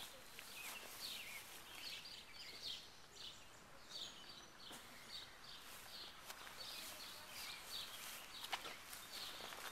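Faint outdoor ambience with birds chirping: short, high, falling chirps, about two a second. A single sharp click comes about eight and a half seconds in.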